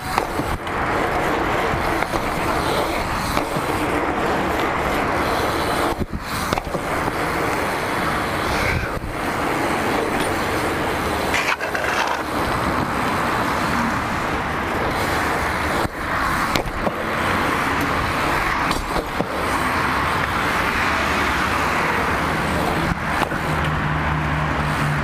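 BMX bike tyres rolling on asphalt and concrete, with steady wind rush over the handlebar-mounted GoPro microphone. A low steady hum comes in near the end.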